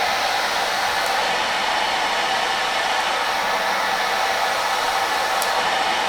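Mechanical insufflation-exsufflation (cough assist) machine running: a steady airflow hiss with a faint constant tone.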